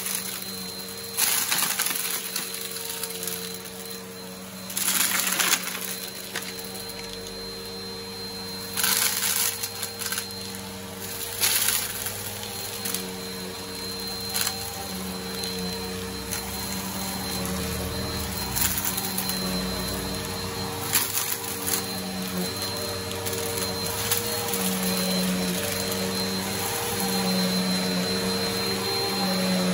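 Upright vacuum cleaner running steadily on carpet, a motor hum with a thin high whine. Four loud rattling bursts in the first twelve seconds as loose grit and debris are sucked up.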